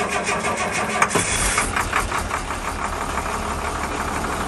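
Diesel truck engine starting from cold on starter fluid: it turns over and fires in uneven beats, then catches about two seconds in and runs on at a steady, knocking idle.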